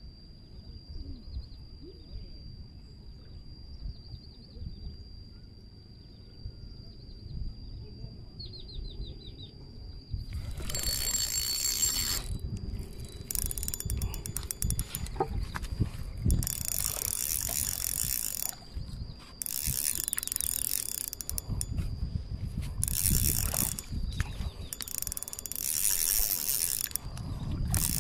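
Spinning reel being cranked to retrieve a lure: its gears whir and click in repeated bursts of one to three seconds with short pauses, starting about a third of the way in.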